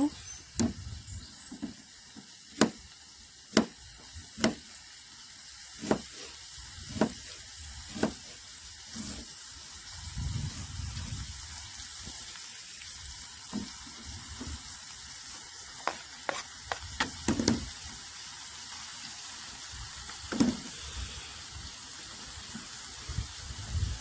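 Chicken sizzling steadily in an aluminium British Army mess tin over a fuel-tablet stove, with a knife chopping a red onion on a plastic board in a dozen or so irregular sharp taps, several close together about two-thirds of the way in.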